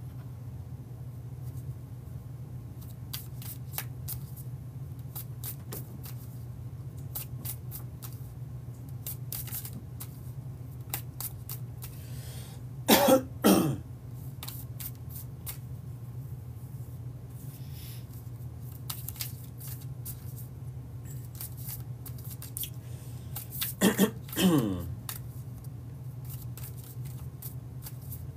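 Tarot cards being shuffled by hand, a run of light snapping clicks over a steady low hum. A man coughs about halfway through and again near the end; these coughs are the loudest sounds.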